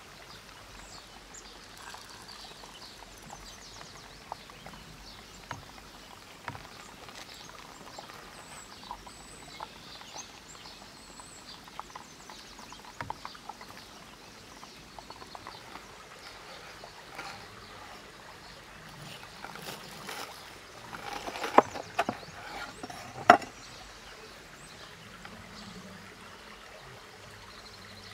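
Steady rush of a nearby river, with small crackling pops from a bread-crumbed burger deep-frying in oil during the first half. About twenty seconds in comes a run of crisp crunches and two sharp cracks as a knife cuts through the golden fried crust.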